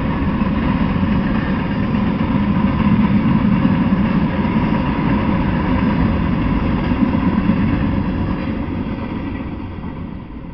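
Freight train of covered hopper cars rolling past on the rails, a steady loud rumble that fades over the last couple of seconds as the end of the train clears.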